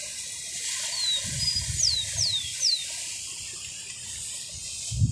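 A small songbird singing one short phrase: a couple of high notes followed by three quick descending whistles, over a steady high hiss. Low thumps come through, the loudest near the end.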